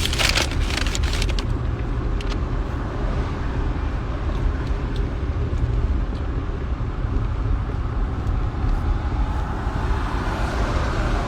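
Steady low rumble of a truck, engine and road noise, with a brief rustling clatter right at the start.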